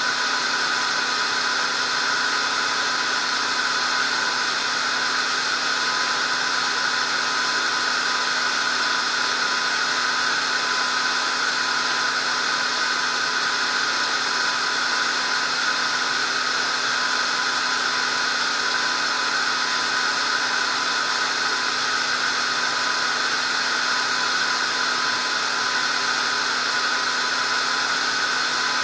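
Steady hiss with a constant high-pitched whine, unchanging throughout, like a small electric motor or electronics running.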